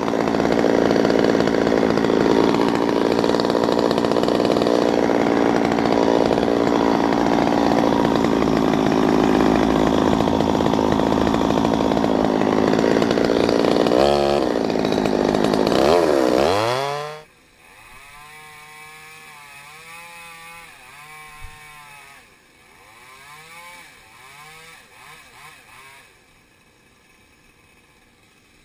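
Stihl MS 200T top-handle two-stroke chainsaw at full throttle, cutting through a walnut trunk. About seventeen seconds in the engine revs drop and the loud cutting stops. A quieter chainsaw then revs up and down for several seconds.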